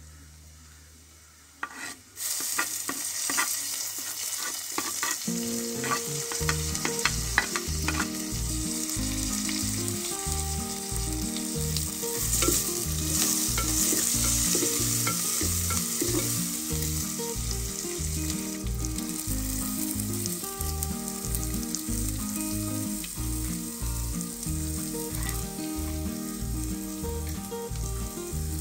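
Chopped onion, green chilli and curry leaves hit hot coconut oil in a clay pot about two seconds in, and a loud sizzle breaks out. The oil then fries steadily, with clicks of a wooden spoon stirring in the pot. Background music with a steady low beat plays underneath.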